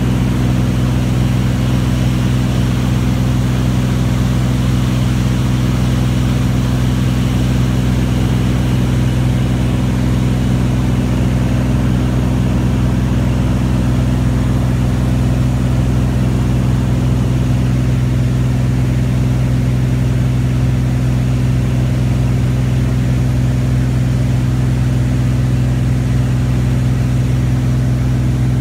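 Single-engine light aircraft's piston engine and propeller running steadily in flight, heard from inside the cabin as a constant, even drone.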